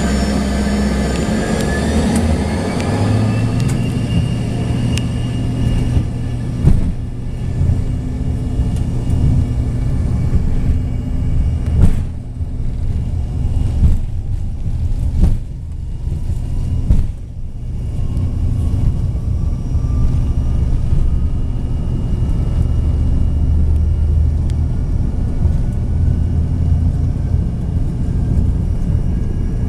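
Embraer regional jet's engines heard from inside the cabin, their whine rising over the first few seconds as they spool up to takeoff power, then holding at a steady drone over a heavy rumble as the jet rolls down the runway. Several sharp thumps from the wheels over the runway surface come in the middle, and a faint tone climbs slowly in pitch as speed builds.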